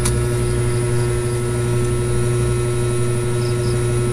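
Steady low hum of background noise with a constant tone in it, a single sharp click at the start, and a few faint, short high chirps now and then.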